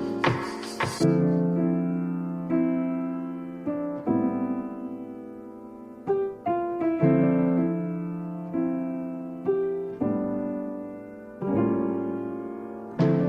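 Slow piano music: chords struck every second or two and left to ring and fade, with a short run of higher notes about six seconds in.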